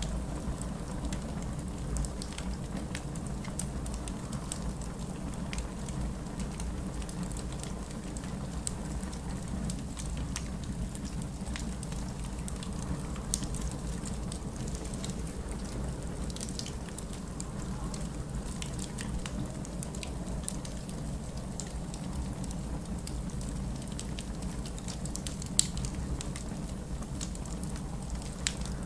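Wood fire crackling in a fireplace: many small crackles and ticks, with a couple of sharper pops, over a steady low rumble.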